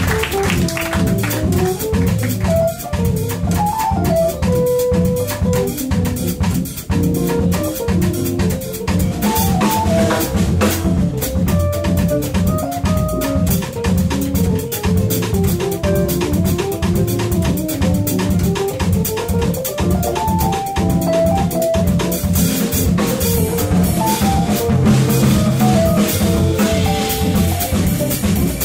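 Live small-group jazz: double bass and drum kit keep time under keyboard and a fast single-note solo line that winds up and down.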